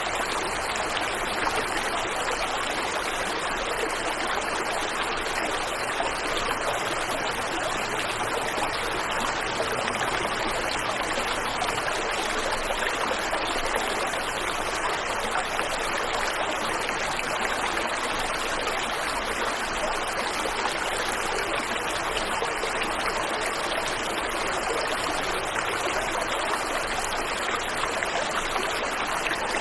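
Waterfall and stream water rushing steadily, a constant even wash of sound.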